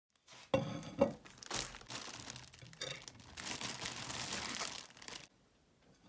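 Crinkling and rustling of something being handled, with two sharp crackles in the first second, stopping suddenly about five seconds in.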